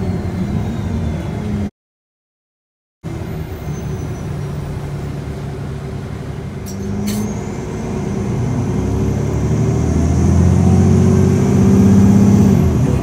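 A 2009 Nova Bus LFS city bus under way, heard from inside the cabin, with a steady engine and drivetrain drone. The sound cuts out completely for about a second, two seconds in. From about six seconds in, the engine note climbs in pitch and grows louder as the bus accelerates, then eases off near the end.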